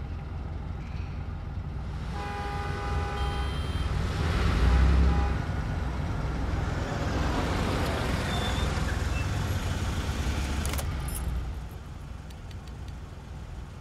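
Highway traffic: a steady low road rumble of cars driving past, with one car passing loudest about five seconds in. A short pitched tone sounds about two seconds in, and the traffic noise drops lower near the end.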